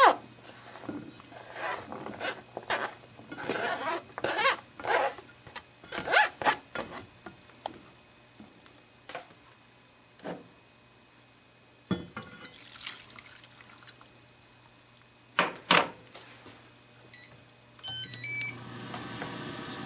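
Chopped candied chestnuts scraped off a cutting board into a stainless steel saucepan, in a run of rapid scraping and tumbling strokes, then a few knocks and milk poured into the pan. Near the end an induction cooktop's control panel beeps a few times as it is switched on, and a steady hum of the running hob follows.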